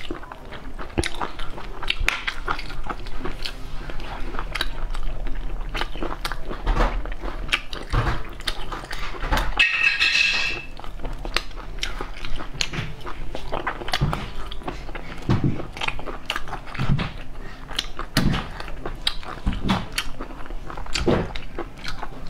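Close-miked eating of stir-fried snails in their shells: chewing, lip smacks and many small wet mouth clicks, with a brief high squeak about halfway through.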